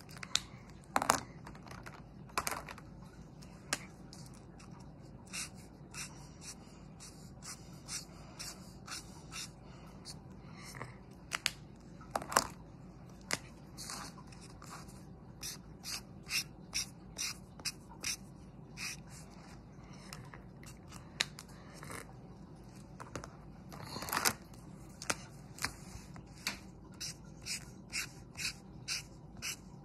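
Felt-tip marker drawn across paper in short strokes, one after another, coming about two a second in the later part, with a few louder knocks near the start.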